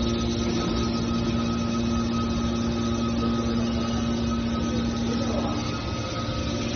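Hydraulic scrap metal baler's power unit running steadily: a constant machine hum with a few held tones.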